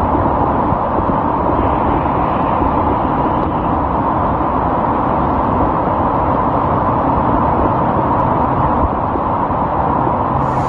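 Steady, loud rush of torrential rain and running floodwater.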